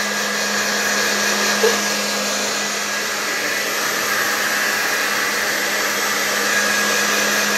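Handheld hair dryer blowing steadily, a constant rush of air over a low electric hum, used to dry a wet chicken's feathers.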